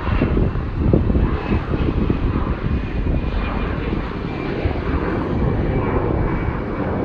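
Jet airliner's engines during takeoff and climb-out: a loud, steady rumble with a faint thin whine above it.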